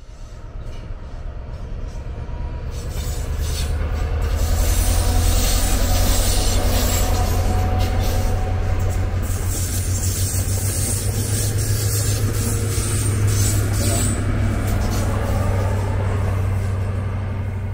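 A Great Western Railway High Speed Train (InterCity 125) passing: a deep, steady diesel power-car hum mixed with wheel and rail noise. It builds over the first few seconds, then holds loud.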